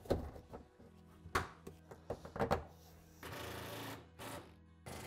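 Background music, with sharp knocks and clicks of the plastic center console and its connectors being handled. About three seconds in, a small cordless driver runs for under a second, then briefly again.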